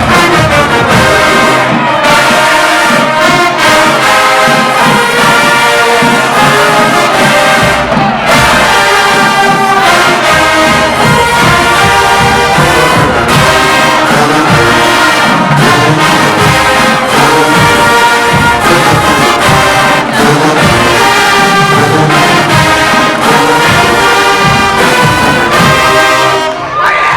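HBCU marching band playing loudly, full brass section of trombones and trumpets over drums, in a sustained run of stacked chords. The music breaks off near the end.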